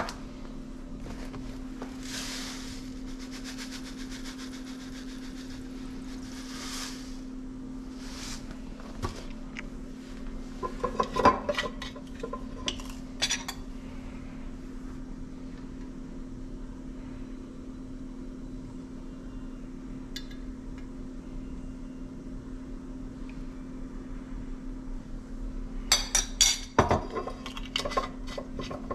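Kitchen pots, dishes and utensils being handled: sharp clinks and knocks about eleven to thirteen seconds in and again near the end. A hiss lasts about five seconds a couple of seconds in, and a steady low hum runs underneath.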